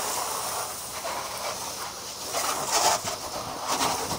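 Garden hose pistol-grip spray nozzle spraying water onto a car, a steady hiss of spray hitting the paint and the wet driveway as the soap is rinsed off.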